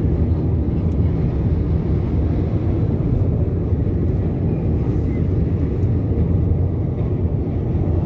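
Steady low rumble of road, tyre and engine noise heard inside the cabin of a car cruising on a highway.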